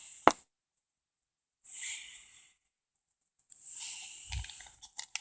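Comic books and their plastic bags being handled: soft, hissy rustling in two short stretches, with a click at the start and a soft thump about four and a half seconds in.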